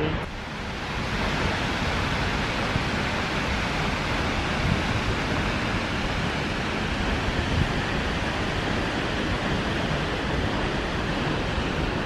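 Waterfall rushing: a steady, even wash of falling water with no break, swelling slightly in the first second.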